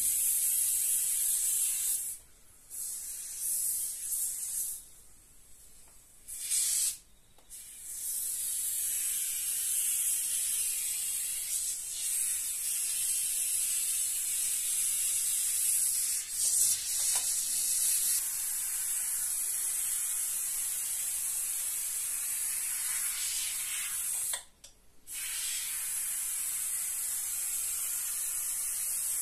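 Foam gun with a pistol-grade can of adhesive foam hissing steadily as beads of foam are squeezed onto plasterboard, with a few short breaks in the flow.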